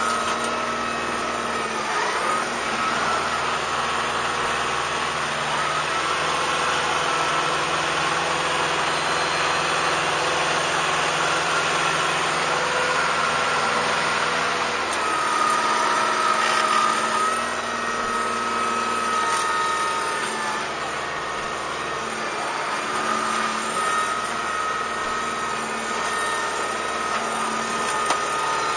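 Kubota M5140 tractor's diesel engine running steadily while the tractor drags a box blade of dirt, with a steady high whine alongside.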